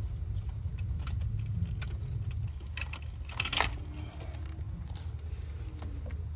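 Electrical wires being pulled out through the metal conduit fitting on the back of a pool pump motor: scattered small metallic clicks and rattles, the loudest cluster a little past halfway. A steady low rumble runs underneath.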